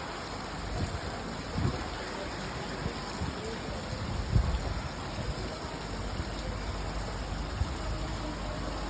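Rain falling steadily, an even hiss of drops on surfaces, with a few soft low thumps now and then.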